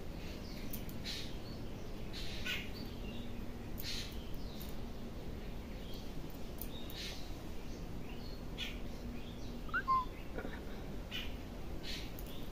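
Birds calling outside, short harsh calls repeated about once a second, with a brief rising chirp near the end.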